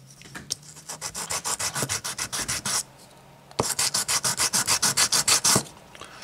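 Hand sanding: a wood strip's freshly veneered edge is rubbed on a sheet of sandpaper in quick back-and-forth strokes, in two runs of about two seconds each with a brief pause between.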